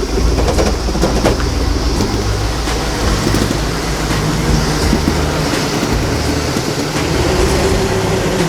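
A car being driven, heard from inside: a steady low engine and road drone with scattered knocks and rattles.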